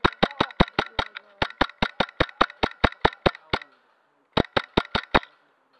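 Wolverine MTW HPA airsoft rifle firing a fast string of shots, about five a second, then a short pause and a burst of five more.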